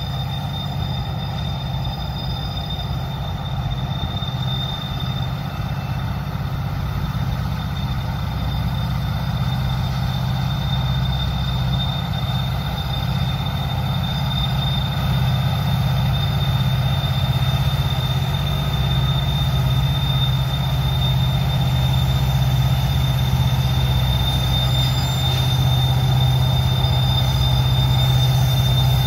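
Norfolk Southern freight train's diesel locomotives rumbling steadily on the grade, slowly growing louder, with a steady high-pitched tone, typical of wheel squeal on a tight curve, throughout.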